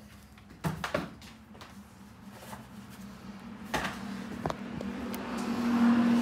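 A roll of vinyl car-wrap film being worked out of its packaging: a few sharp knocks and taps, then rustling and crinkling of the plastic film that grows louder toward the end.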